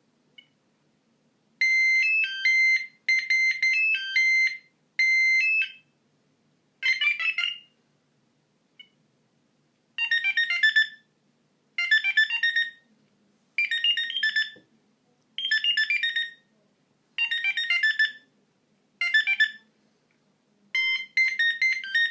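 Philips Savvy mobile phone playing its monophonic ringtones: a string of short, shrill beeping melodies, one tune after another with short pauses between, each snippet lasting about a second.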